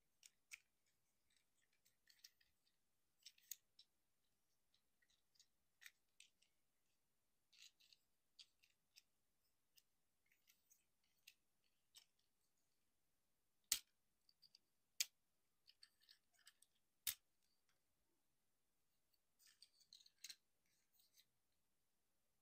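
Hard plastic parts and joints of a Transformers Legacy United Sunstreaker action figure clicking and snapping as they are moved and pegged into place during transformation. Short clicks come in scattered clusters, with three sharper snaps a little past the middle.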